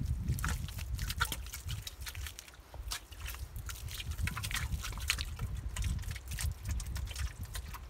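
Wet mud squelching and slapping as hands press and smooth a mud wall and feet shift in the muddy water of the hole: irregular wet squishes and clicks over a low rumble.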